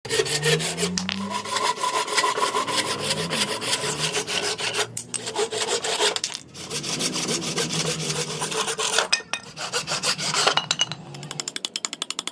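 A hand saw cutting into a wooden block in quick back-and-forth strokes, stopping briefly a few times. Near the end it gives way to a file scraping the wood in shorter, faster strokes.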